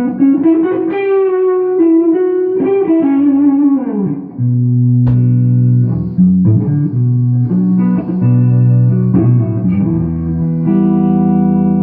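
Takamine GX-100 electric guitar played through a small lunchbox-style tube amp: bent single-note lead lines for about the first four seconds, then held chords struck several times, the last one left ringing near the end.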